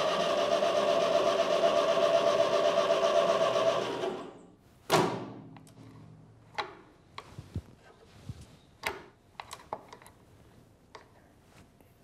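Starter motor cranking a Ferguson tractor's four-cylinder engine in a steady, evenly pulsing whirr for about four seconds without it firing, then stopping. A brief falling whoosh and a few light clicks and knocks follow. The engine is not catching, which the mechanic suspects comes from dirt blocking the fuel lines.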